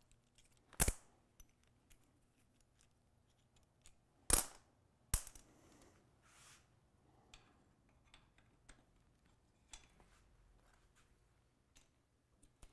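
Small metal suspension parts and hand tools clinking and clicking as they are handled: three sharp clicks, about a second in and twice around four to five seconds in, among lighter scattered ticks.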